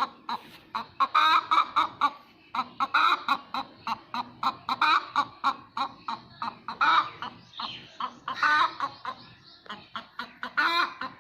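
Hen cackling after laying an egg, the egg song: runs of short clucks building to a louder drawn-out squawk, repeated about every two seconds.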